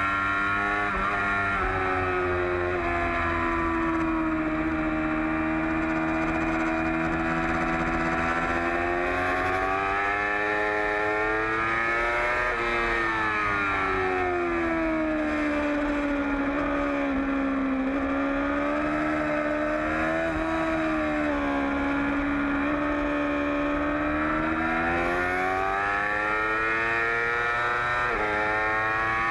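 2008 Yamaha R6's 600 cc inline-four engine running at high revs under race load, its pitch rising along the straights and falling as it slows for the corners, with a few quick jumps in pitch at gear changes.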